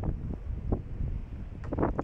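Wind buffeting the microphone, a steady low rumble, with a few short, sharper sounds over it, one near the start and one near the end.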